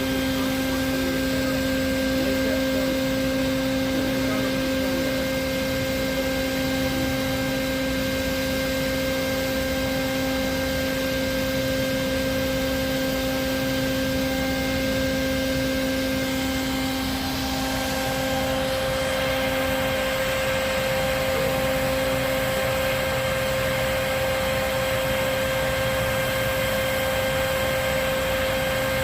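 Vacuum running steadily with a constant motor whine, used to suck bees out of the hive through a hose; its lowest tone fades slightly partway through.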